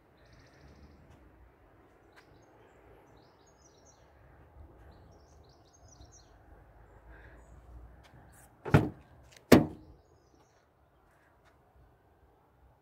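Rear door of a Mitsubishi L200 pickup being opened: two sharp clunks of the handle and latch, a little under a second apart.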